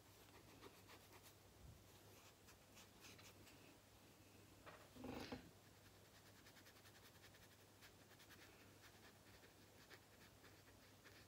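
Near silence: faint scratching strokes of a paintbrush on paper over a low steady hum, with one short soft sound about five seconds in.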